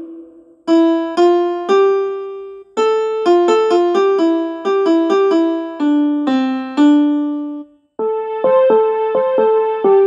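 A ringtone tune played on a piano-like keyboard: a bouncy melody of single struck notes, each dying away. It stops briefly twice, just under a second in and again about eight seconds in.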